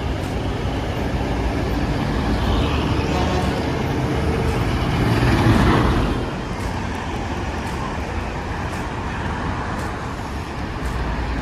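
City street traffic: vehicle engines running and tyres on the road, with one vehicle passing close, loudest about five and a half seconds in.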